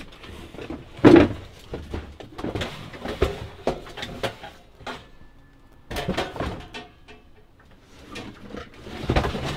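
Junk being rummaged through by hand: cardboard boxes, papers and metal odds and ends shifted and knocked about, with scraping and irregular clunks. The loudest knock comes about a second in.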